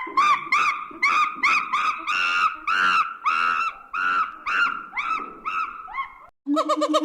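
A monkey calling: a long run of loud, repeated arched calls, about two a second, that slowly fade. After a short break near the end, a different, quicker series of calls starts.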